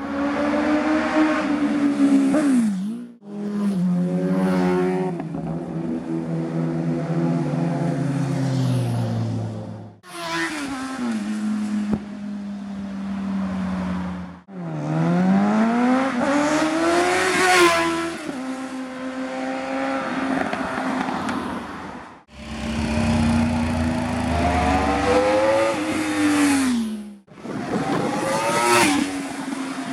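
Sport motorcycle engines passing one after another, revving up with rising pitch and then dropping in pitch as each bike goes by. The sound breaks off abruptly about five times and starts again with another bike.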